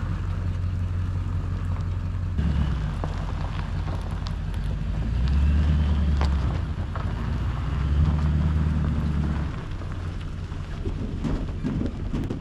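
Heavy engine running under load, its low drone rising in level twice for a second or two as it works harder, with scattered metallic knocks and wind noise on the microphone.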